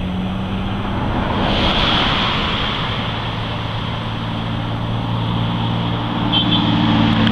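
Steady vehicle noise: a low engine rumble under a rushing hiss that swells about a second and a half in and again near the end.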